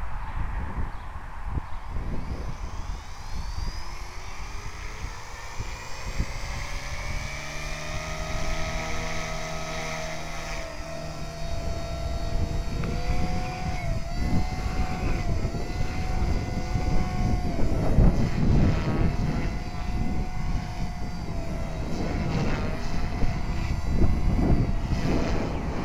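Align T-Rex 250 electric flybarless RC helicopter spooling up, its motor and rotor whine rising steadily in pitch for several seconds, then holding a steady whine in flight that dips briefly in pitch several times. Heavy gusty wind buffets the microphone throughout.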